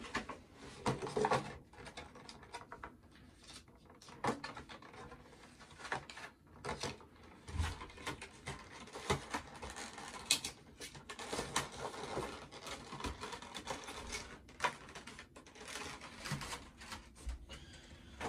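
Irregular small clicks, taps and scratchy rustles of things being handled on a desk, with no steady rhythm.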